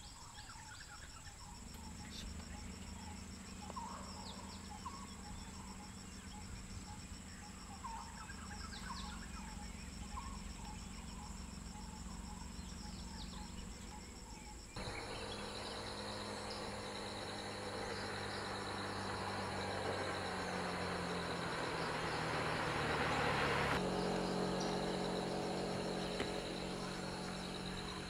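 Steady high-pitched shrilling of insects with scattered short chirps. About halfway through, a vehicle engine comes in abruptly and runs steadily, growing louder to a peak near the end and then easing back.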